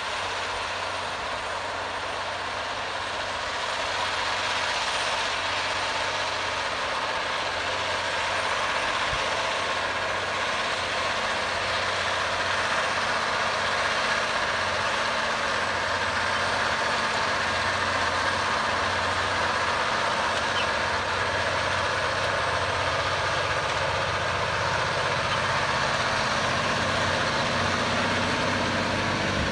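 John Deere 9620RX four-track tractor, with its 15-litre Cummins six-cylinder diesel, running steadily under load while pulling a Vaderstad TopDown disc cultivator through ploughed soil. It grows a little louder about four seconds in.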